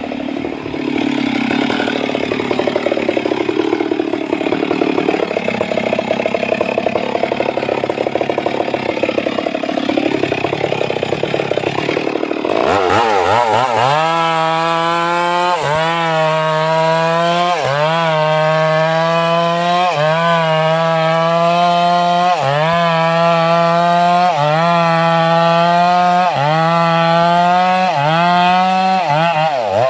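Stihl MS 382 two-stroke chainsaw cutting into a sengon trunk at high revs. Its pitch wavers unevenly under load at first, then about twelve seconds in it settles to a steady high note that sags briefly and recovers roughly every two seconds as the chain bites.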